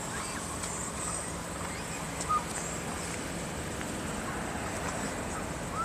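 Steady low outdoor background rumble with a faint constant hum, broken by a single short high chirp about two seconds in.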